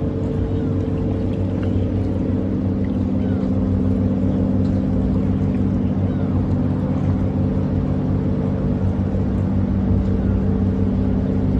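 An engine running steadily at constant speed: a low drone with several steady tones that holds its pitch throughout.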